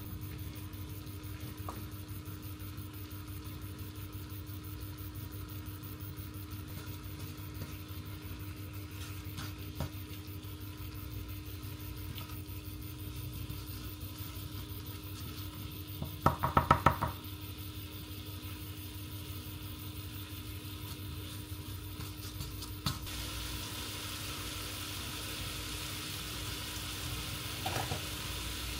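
Food sizzling and frying in a pan while being stirred, with a brief loud rattle of quick knocks just past the middle. The sizzle grows louder and brighter from about two thirds of the way in.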